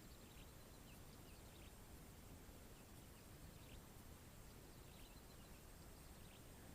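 Near silence, with faint scattered short high chirps from birds.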